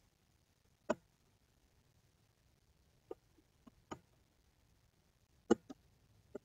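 Computer mouse clicking: about seven short, sharp clicks spaced irregularly, with quiet room tone between.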